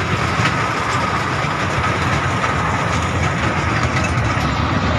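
Amusement-park mini train running along its track, heard from inside a carriage: a steady low running noise with faint wheel clicks and a steady high whine.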